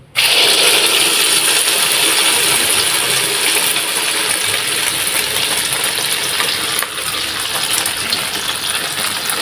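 Beaten egg mixture poured into hot oil in a wok, sizzling loudly as it fries. The sizzle starts suddenly as the egg hits the oil and then carries on steadily.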